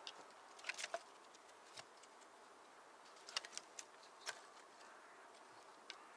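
Quiet background with a few scattered, sharp clicks and crackles, bunched about a second in and again after three seconds.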